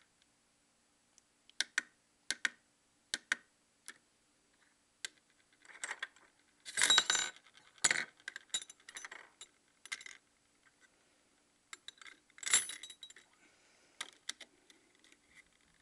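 Sterling silver rings clinking and rattling against each other and the pan of a small digital pocket scale as they are set on it to be weighed: first a few separate clicks, then several bursts of metal clatter, the loudest about seven seconds in.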